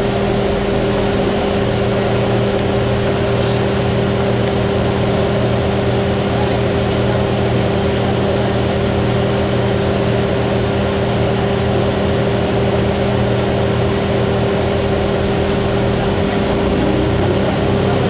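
Cabin sound of a 2002 Blue Bird CS transit bus with a Cummins ISC inline-six diesel and Allison B400R automatic: the engine and driveline running with a steady hum. Near the end a whine rises in pitch.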